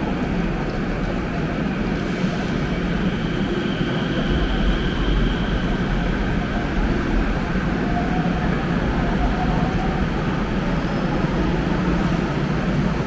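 Steady rumble and hiss of light-rail station noise on a platform with glass screen doors, a train standing beyond the glass.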